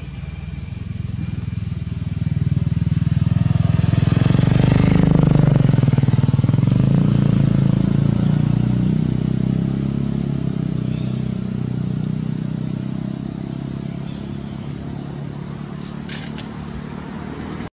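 A motor engine running close by, its low hum swelling over the first few seconds and then slowly fading, over a steady high-pitched hiss.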